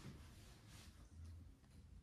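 Near silence: quiet room tone, with a faint soft rustle about three quarters of a second in.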